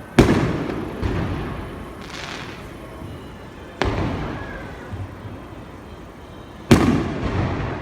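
Aerial fireworks shells bursting: four sharp booms, the loudest near the start and near the end, each trailing off in a long rumbling echo, with a softer hissing burst about two seconds in.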